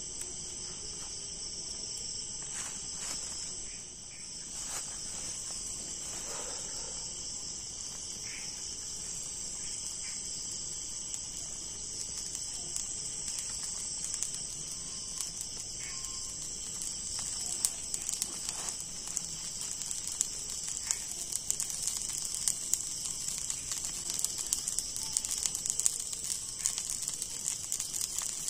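A steady high-pitched chorus of night insects. Crackling and popping from the small wood fire under the cooking wok, growing more frequent in the second half.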